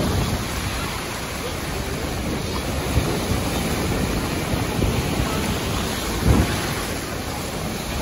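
Ocean surf breaking and rushing up the beach, with wind buffeting the phone's microphone. A brief low thump comes about six seconds in.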